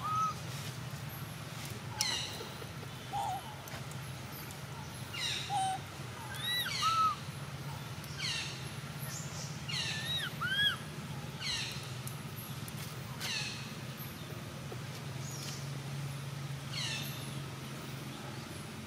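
Birds calling: a string of whistled calls, each sweeping downward, repeated about once a second, with a few short arched chirps mixed in, over a steady low hum.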